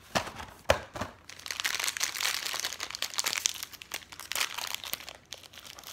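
Thin plastic snack wrapper crinkling and tearing as a small packet of Oreo Thins cookies is pulled open by hand, starting with a few sharp snaps in the first second and then continuous crackling.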